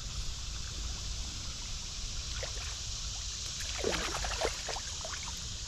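Stream current running steadily over riffles, with a hooked fallfish splashing at the surface a few times about four seconds in.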